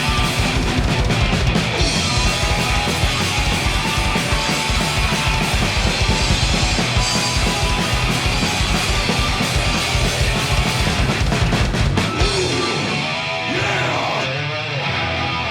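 A punk rock band playing loud, fast music with a pounding drum kit and distorted electric guitar. About twelve seconds in the drums drop out, leaving wavering sustained pitched notes for the last few seconds.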